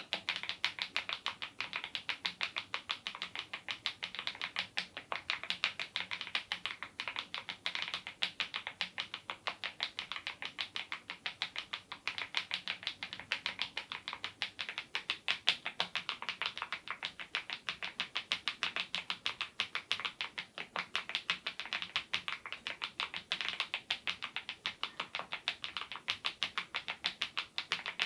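Continuous fast typing on a mechanical keyboard with HMX Cheese switches and Keytok Smile-profile keycaps (Cherry-style keycaps with rounded-off bottoms): a steady stream of crisp keystroke clacks, several a second.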